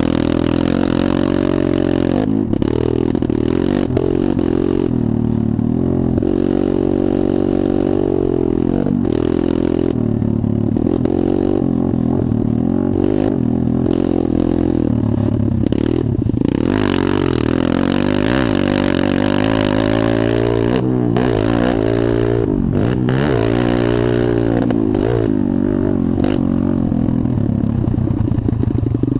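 Motocross dirt bike engine heard from on the bike as it is ridden around the track, revving up and dropping off again and again through straights, jumps and turns, with several quick rev swoops in the second half.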